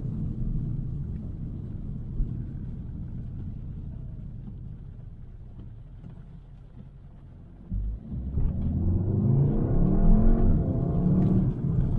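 Volkswagen Golf R's turbocharged four-cylinder engine heard from inside the cabin. A low rumble fades away as the car coasts. Then, nearly eight seconds in, the engine picks up suddenly and revs hard, its pitch climbing as the car accelerates.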